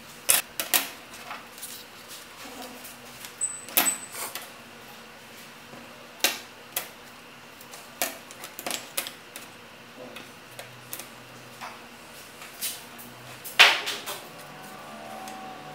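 Flat plywood lamp-kit pieces being picked up, slid together and set down on a tabletop: scattered light wooden clacks and taps, with a louder knock near the end.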